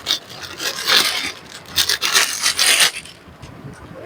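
Rustling and rubbing of printed cloth suits being handled, in several irregular bursts, going quieter for the last second.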